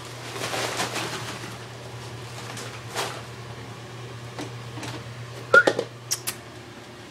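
Small dog moving in booties on a hard floor: scattered light taps, with the loudest a quick cluster of clicks and a short squeak about five and a half seconds in, over a steady low hum.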